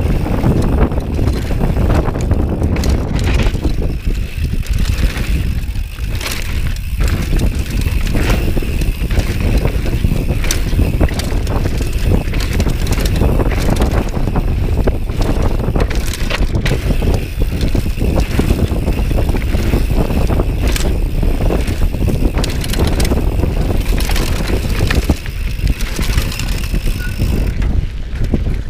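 Mountain bike riding fast down a dirt and gravel forest trail: wind rushing over the camera microphone and tyres rolling over dirt and stones, with frequent short knocks and rattles from the bike over bumps.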